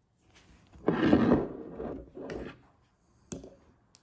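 Handling noise of a square glass bottle of shimmering body oil being moved on a wooden tabletop: a loud scrape and rub about a second in, a shorter one after it, then two sharp clicks near the end.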